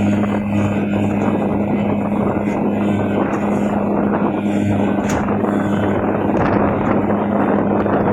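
Speedboat engine running at a steady pitch under way, with wind buffeting the microphone.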